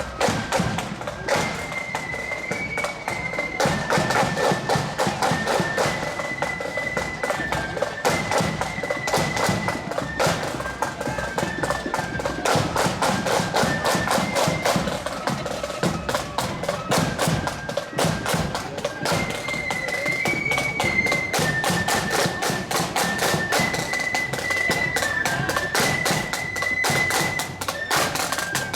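Marching band playing a tune as it parades: a high, shrill melody line over steady, heavy drumming.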